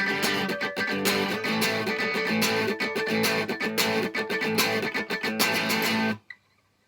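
Guitar-led instrumental music with strummed chords on a steady rhythm, stopping abruptly about six seconds in and leaving near silence.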